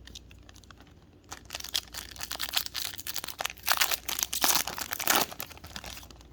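A foil trading-card pack wrapper being torn open and crinkled by hand, a dense crackling that builds about a second in and is loudest shortly before the end.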